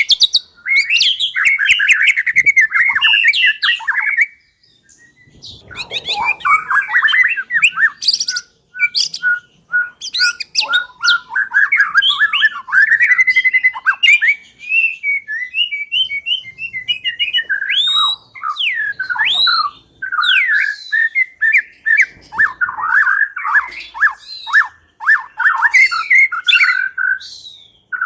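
White-rumped shama singing a loud, varied song of whistled phrases and fast trills, with a short pause about four seconds in.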